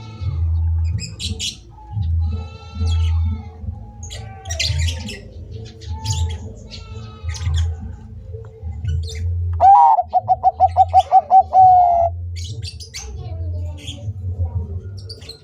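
Zebra doves (Bangkok perkutut) singing, with other small birds chirping. The loudest part is a quick run of about eight cooing notes lasting about two seconds, partway through.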